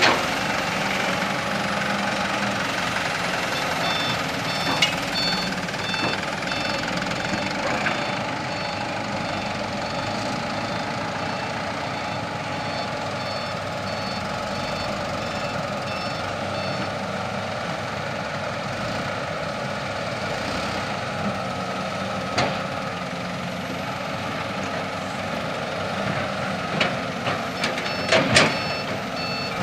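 Mitsubishi Canter dump truck's diesel engine running steadily while its reversing alarm sounds repeated beeps as it backs up. The beeping stops about halfway through and starts again near the end, with a few sharp knocks.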